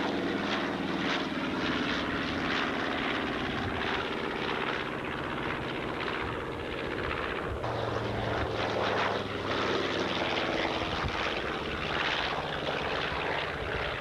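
Radial piston engines of low-passing World War II twin-engine bombers, a B-25 Mitchell among them, droning steadily. About halfway through the sound changes abruptly and a lower engine note comes in.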